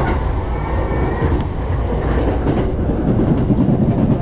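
Sotetsu 10000 series electric train running, heard from inside the carriage: a steady low rumble with the clack of wheels over rail joints.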